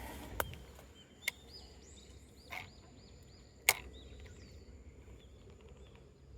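A few sharp clicks and taps, the loudest nearly four seconds in, with a short rustle between them, over a bird's quick repeated chirps and a steady high insect whine.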